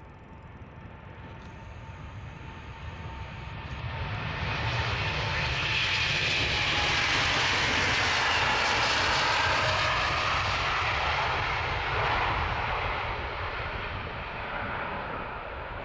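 Boeing 787-9 airliner's jet engines at takeoff power as it rolls down the runway. The roar grows louder over the first five seconds, peaks as the plane passes about eight seconds in, then fades as it lifts off.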